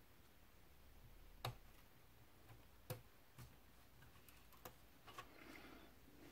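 Near silence with a handful of faint, sharp clicks, the strongest about a second and a half in, from fingers handling thin wires and plastic parts inside an opened laptop.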